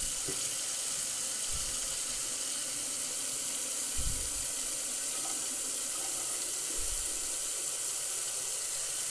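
Kitchen faucet running a steady stream of water straight into a stainless steel sink's drain, the water going down freely without pooling now that the P-trap has been cleared of its clog.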